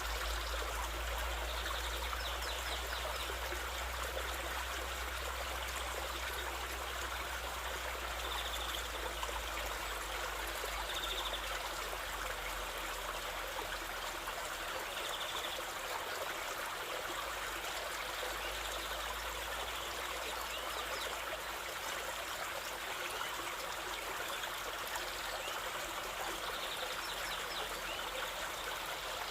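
A stream flowing steadily, an even rushing and trickling of water, with a few faint short high chirps now and then.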